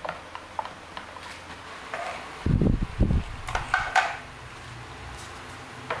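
Hard objects clinking and knocking as they are handled, with two heavy low thuds about halfway through, followed by a quick cluster of clatters.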